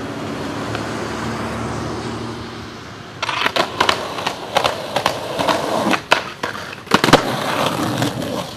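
Skateboard on a concrete sidewalk: a steady rolling of the wheels, then from about three seconds in a rapid series of sharp clacks and knocks from the board.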